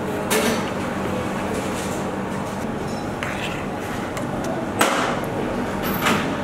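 A few sharp knocks and taps as pizza slices are handled with a spatula on a metal baking tray and set into a cardboard pizza box, four in all, the loudest about two-thirds through. Under them runs a steady mechanical hum.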